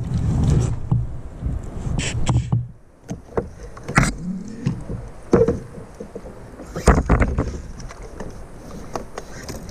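Choppy sea water slapping and splashing against a Hobie kayak's hull, with a low rumble over the first few seconds and several sharp slaps and splashes after it.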